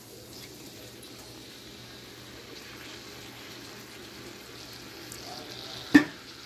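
Thick jarred tomato sauce poured into a stainless steel pan of browned ground beef, over a steady low sizzle from the hot pan. About six seconds in, a single sharp knock as the glass jar taps the pan.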